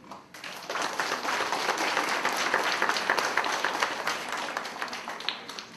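Audience of schoolchildren and parents applauding in a school assembly hall, the clapping rising quickly about half a second in and dying away near the end.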